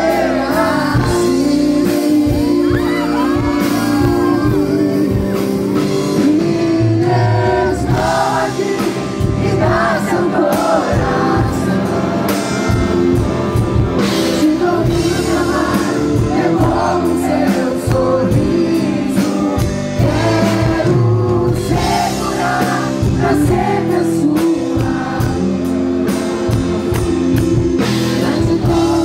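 Live pop-rock band playing, with a male lead vocalist singing into a microphone over electric bass and drums.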